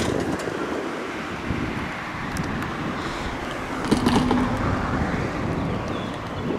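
Street traffic with wind on the microphone; a car drives past close by about four seconds in, the loudest moment.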